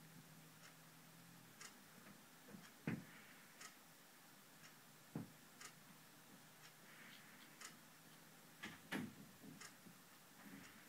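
Faint handling noise: soft rubbing and scattered light clicks as a clear plastic coin capsule holding a silver round is turned in cotton-gloved fingers. A few sharper clicks stand out, about three seconds in, about five seconds in, and a short cluster around nine seconds.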